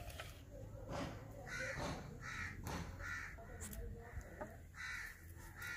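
A crow cawing about five times in a loose series, with a few light clicks and taps from boiled eggs being handled and their shells cracked and peeled.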